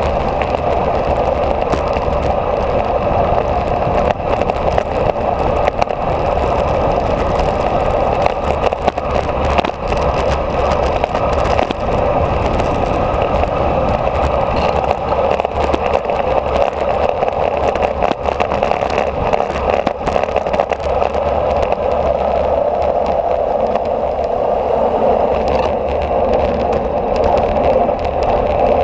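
Steady wind rush and buffeting on a moving action camera's microphone during a fast road descent, with a low rumble and many small crackles throughout.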